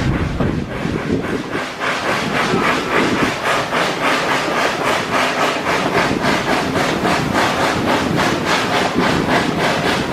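Steam locomotive chuffing steadily, about three exhaust beats a second, with the train's running noise underneath.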